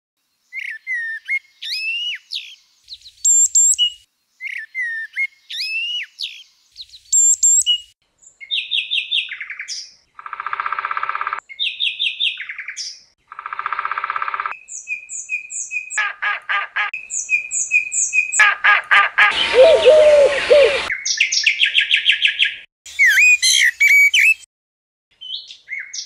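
Bird songs and calls in quick succession, starting with a great tit's chirps and whistled phrases. Later come rapid trills, repeated chirps and harsh buzzy calls. The loudest is a harsh call about three-quarters of the way through.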